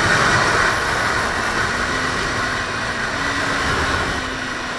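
Wind rushing over a helmet-mounted microphone on a Kawasaki Ninja 300 ridden at speed, with the bike's parallel-twin engine note faint beneath it. The rush eases a little about a second in and again near the end.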